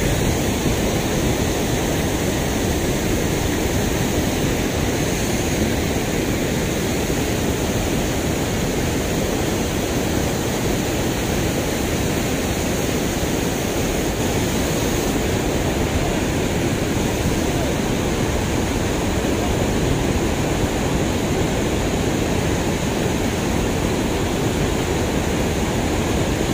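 Water pouring over a concrete dam weir, a steady, even rush of white water that does not change.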